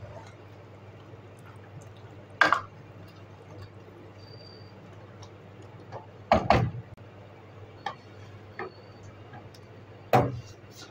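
A wooden spoon stirring beef in water in an aluminium pressure cooker, knocking against the pot a few times several seconds apart, over a faint steady hum. Near the end comes a heavier metal clunk as the pressure cooker's lid is handled.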